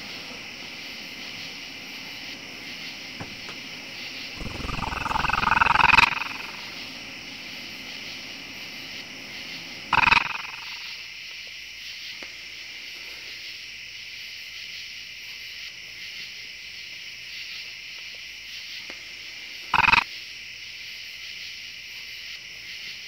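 Growls or snarls over a steady high hiss: a long one swelling louder about five seconds in, then short ones around ten and twenty seconds in.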